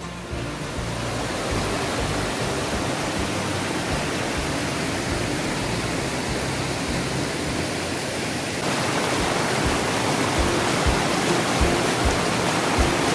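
Small waterfall rushing steadily over rocks, a dense even wash of falling water; the sound changes abruptly about two-thirds of the way through, growing brighter.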